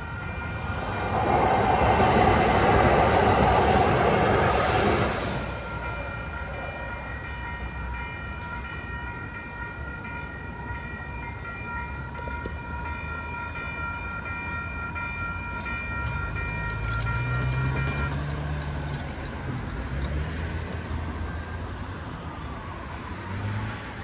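Electronic crossing bell (a WCH E-Bell) ringing steadily at a railroad grade crossing while a light-rail train rushes through loudly for about four seconds early on; the bell keeps ringing as the gates rise and stops about eighteen seconds in. A vehicle engine pulls away near the end.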